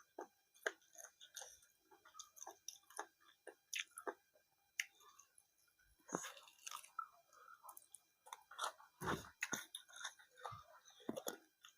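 Close-up sounds of a person chewing and biting food, an irregular run of short wet mouth clicks and crunches.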